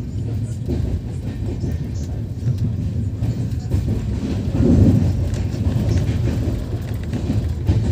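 Running noise of an express passenger train at speed, heard inside the coach: a steady low rumble of wheels on rail that swells briefly just before five seconds in.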